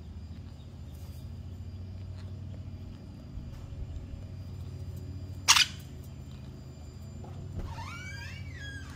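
Quaker parrots calling: one short, sharp, loud cry about halfway through, then a run of chattering calls that rise and fall in pitch near the end, over a steady low hum.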